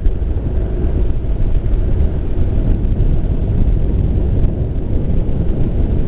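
Wind blowing across the microphone, a loud, steady low rumble.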